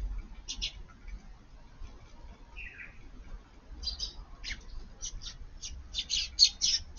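Eurasian tree sparrows chirping: scattered short chirps, then a quicker, louder run of chirps near the end.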